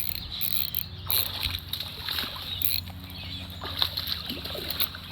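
A hooked bass splashing at the water's surface as it is reeled in, in short irregular bursts.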